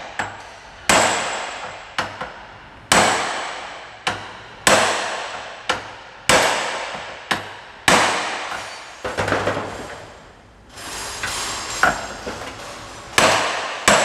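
Short-handled sledgehammer striking a steel socket held as a drift against a universal-joint (cross) bearing cup in a driveshaft yoke, driving the cup through. About a dozen sharp metal-on-metal blows, each ringing off, roughly one a second, with a short pause near the end.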